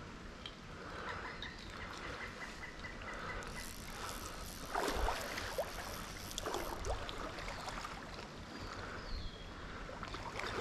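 River water sloshing and splashing around wading legs in a shallow stream, with the loudest splashes about five seconds in and a few more a couple of seconds later.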